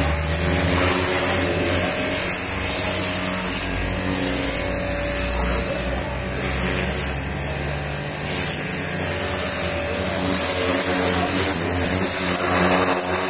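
Pressure washer running with a steady motor hum, its jet of water hissing against the car's body panels.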